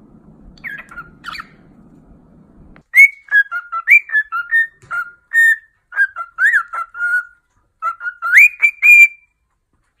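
Cockatiel whistling a tune: a run of quick, clear notes, some swooping upward, from about three seconds in until about a second before the end. Before it come a couple of short chirps.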